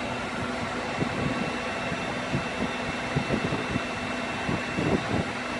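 Heat gun blowing steadily with a faint hum, drying and curing liquid vinyl under a grain mold on a vinyl seat cover patch.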